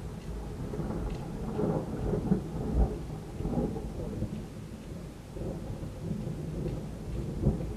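Thunder from a severe thunderstorm rumbling low and unevenly, swelling about two to three seconds in and rising again near the end.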